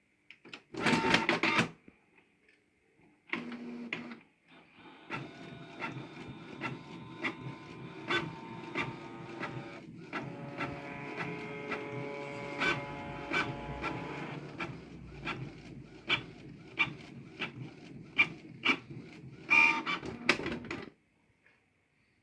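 Canon PIXMA G670 inkjet printer running: a short loud mechanical burst about a second in, then a steady motor whir with many sharp clicks from the print-head carriage and paper feed for about sixteen seconds, with another loud burst near the end before it stops suddenly.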